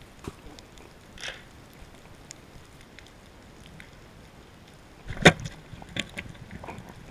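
Quiet underwater ambience with faint scattered clicks. About five seconds in comes a single sharp, loud strike as a pole spear is shot into a mutton snapper, followed by a few smaller knocks.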